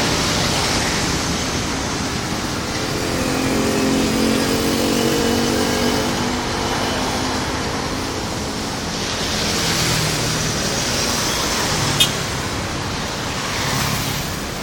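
Road traffic going by, with a heavy vehicle's engine droning past between about three and six seconds in, and one sharp click about twelve seconds in.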